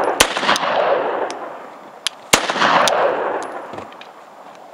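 Roth-Steyr 1907 pistol firing 8mm Steyr: two shots about two seconds apart, each followed by a long echo that slowly dies away.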